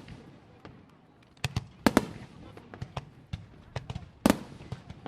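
Aerial fireworks shells bursting: a series of sharp bangs with echoing tails, the loudest about four seconds in, with smaller crackling pops between them.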